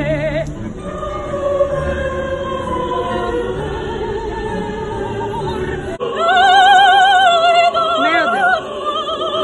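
A woman singing opera with a strong vibrato; about six seconds in her voice swells into loud, high held notes.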